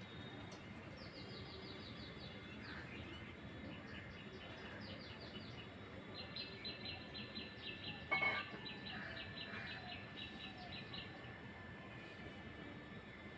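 Birds chirping in quick runs of short high notes over faint background noise. The longest run lasts about five seconds in the middle, and one brief louder sound comes about eight seconds in.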